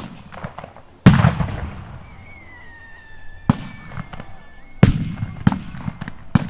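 Blank gunfire from reenactors' rifles: about six sharp shots at irregular intervals. The loudest comes about a second in and echoes for a while.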